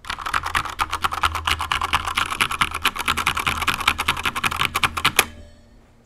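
Fast typing on a Corsair K70 RGB TKL mechanical keyboard with stock linear silver switches and stock keycaps: a rapid, steady clatter of keystrokes. It stops with one last louder stroke about five seconds in.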